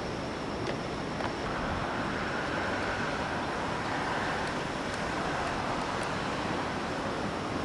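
Ocean surf washing steadily, with a wave building from about a second and a half in and easing off toward the end.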